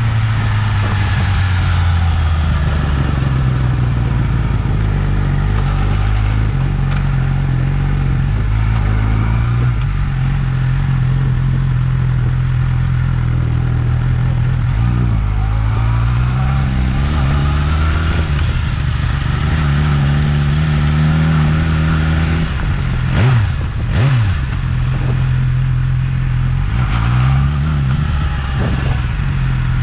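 Yamaha R6's inline-four engine through its stock exhaust, running steadily with its pitch shifting up and down a few times. About three-quarters of the way in, two quick revs rise and fall sharply, with more short revs near the end.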